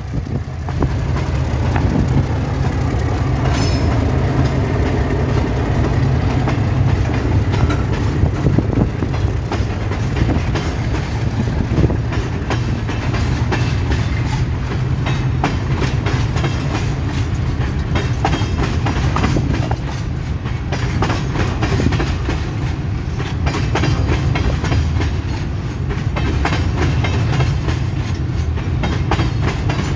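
Freight train passing close by: an ALCO RSD16 diesel locomotive's engine running as it goes past, then a long string of empty steel mineral hopper cars rolling by. There is a steady low rumble, and the wheels click and clatter over the rail joints in an uneven rhythm throughout.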